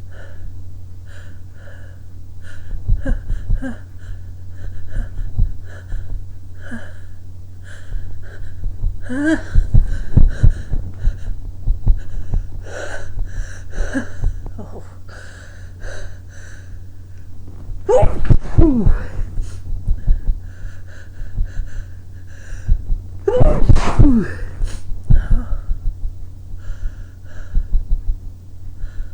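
A person sneezing loudly, three big sneezes about ten, eighteen and twenty-four seconds in, each led by a rising, gasping intake of breath, with smaller catches and short quick breaths in between.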